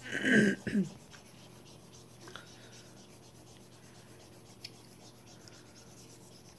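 Stylus scratching faintly on a Huion pen tablet as lines are drawn, after a brief voice sound at the very start.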